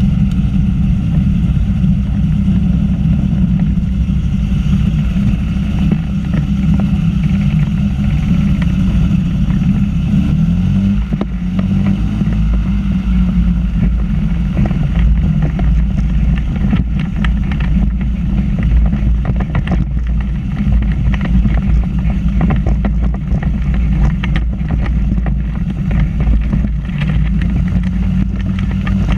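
Microlight trike's engine and pusher propeller running loud and steady close to the microphone while the trike taxis; the engine note shifts about eleven seconds in.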